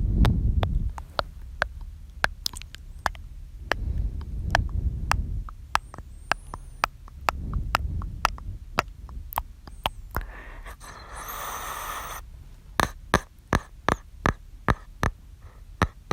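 A man's close-miked mouth sounds: many wet clicks and lip smacks, with three breaths blowing on the microphone as low rumbles about every four seconds, a longer airy breath about two-thirds through, and a quick run of clicks near the end.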